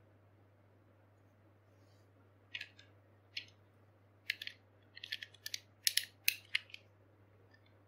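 Irregular series of sharp plastic clicks as a Metal Fight Beyblade top is fitted onto its launcher. The clicks start about two and a half seconds in and come faster and louder near the end.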